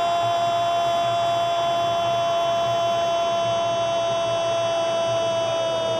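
A football commentator's long, drawn-out goal cry, a single "Gooool" held on one steady, loud note that sags slightly in pitch.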